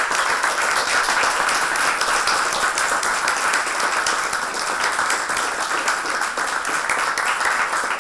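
Small audience applauding steadily, a dense patter of many hands clapping.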